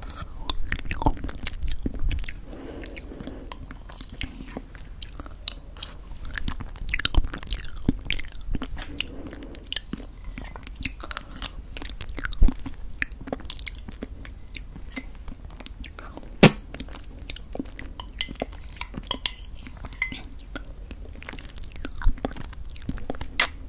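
Close-miked mouth sounds of eating thick yogurt mixed with homemade granola: wet chewing with crunching and scattered sharp clicks.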